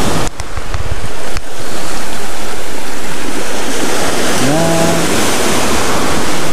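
Waves breaking and washing up a sandy beach, with a loud, steady rush of wind on the microphone. The rush drops away briefly about a third of a second in and comes back a second later.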